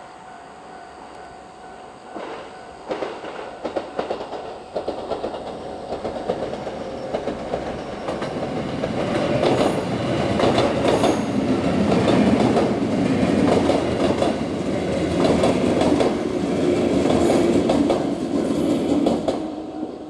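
JR West 221 series six-car electric train approaching and passing, wheels clicking over the rail joints. It grows steadily louder, at its loudest in the second half.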